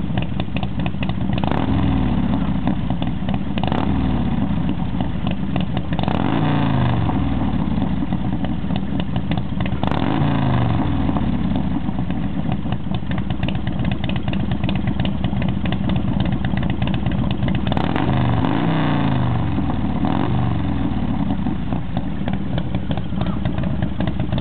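Harley-Davidson V-twin touring motorcycle idling, its throttle blipped several times so that the engine revs rise and fall back to idle.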